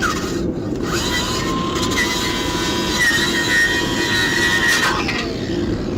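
A power tool's wire wheel scrubbing rust and scale off a truck's brake dust shield: a steady motor whine over harsh scraping, the whine dipping briefly near the start and sliding down near the end.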